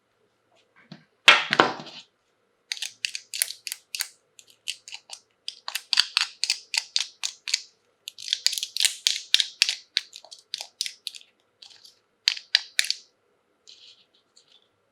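Plastic toy packaging crinkling and crackling as it is handled and opened: one louder rustle about a second in, then runs of quick sharp crackles.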